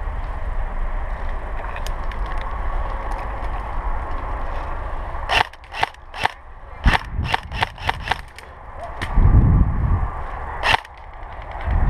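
Airsoft guns firing: after a steady background hiss, a quick string of about a dozen sharp snapping shots over some three seconds, a low rumble, then one more shot near the end.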